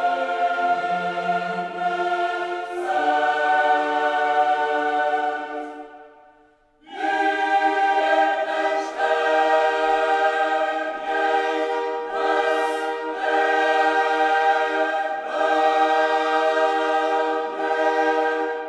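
Background music of a choir singing slow, long-held chords. The chord fades out about six seconds in, and a new passage starts about a second later.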